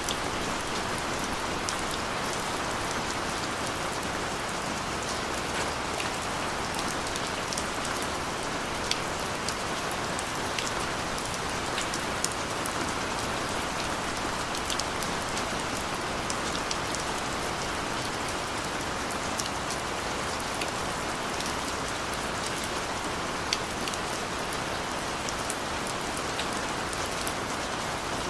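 Steady rain falling, with individual drops ticking sharply and irregularly on top of the even hiss.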